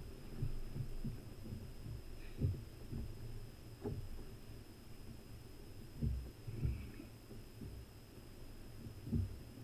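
Irregular, muffled low thumps and knocks on a fishing kayak's hull, about one a second with the loudest near a quarter, two thirds and the end, over a faint steady high whine.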